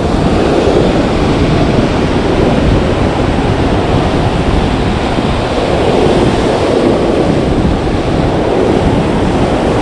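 Ocean surf breaking and washing up the beach, a steady rush of waves, with wind blowing across the microphone.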